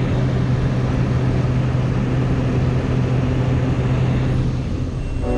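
Steady drone of a small high-wing propeller plane's engine, heard from inside the cabin in flight, with a strong low hum. About four and a half seconds in, the hum cuts out and the sound dips briefly.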